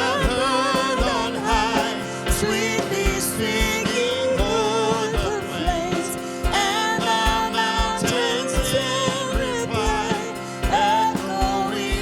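Live worship music: a Christmas hymn sung with a band, voices carrying the melody over sustained keyboard chords and a steady drum beat.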